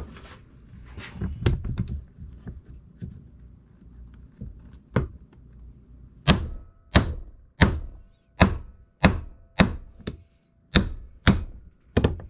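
Hammer blows on a steel punch, driving the right axle bearing out of a 2005 Kawasaki Brute Force 650 front differential case, with the punch set against the bearing's inner race. A few lighter, uneven taps come first, then from about halfway a steady run of hard metallic strikes, a little under two a second, some leaving a short ring.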